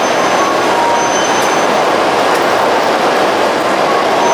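Steady, loud rushing noise of a coupled E5 and E6 Shinkansen set standing at the platform with its onboard equipment running, and a faint high whine that comes and goes.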